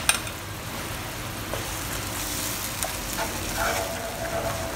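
Scallop and oyster sauce simmering with a steady sizzle in a non-stick wok as a wooden spatula stirs it. A metal pepper shaker gives one sharp dash right at the start.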